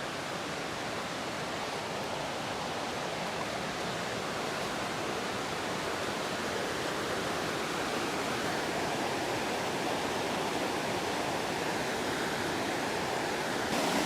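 Steady rushing roar of a waterfall, an even wash of falling water that grows slightly louder near the end.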